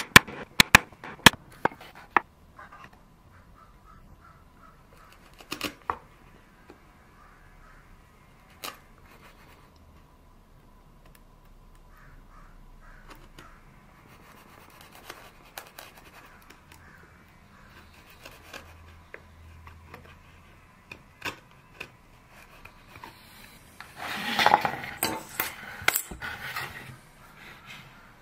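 Steel bench chisel paring the end grain at a dovetail corner of a birch box. Several sharp clicks come in the first couple of seconds, with scattered scrapes and clicks after them, and a louder stretch of scraping and cutting near the end.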